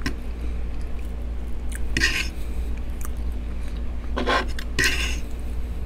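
Close-up eating sounds: chewing a mouthful of baked potato, with a few short scrapes of a metal fork through the potato on a wooden board about two, four and five seconds in. A steady low hum runs underneath.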